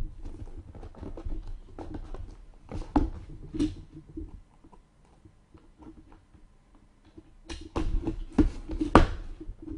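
Hands opening and handling a trading card box and its packs: crinkling, rustling and scattered sharp clicks and taps of wrapper and cardboard, busiest and loudest near the end.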